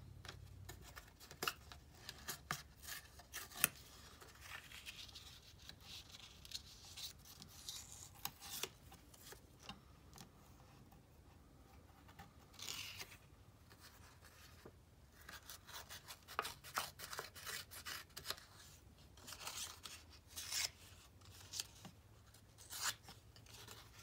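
Painted paper being handled and torn by hand: soft, irregular rustles and crisp snaps, with a few longer rasping rips.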